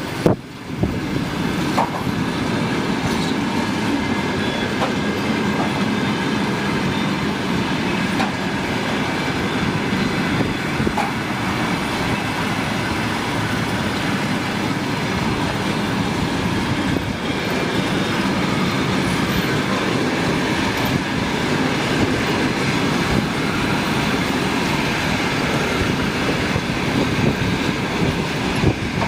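Passenger train rolling past at speed, its wheels clattering steadily over the rail joints.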